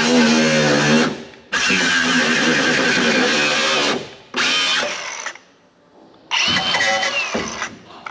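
Handheld angle grinder cutting metal in several runs of a second or more, with short pauses between them and a longer pause in the middle.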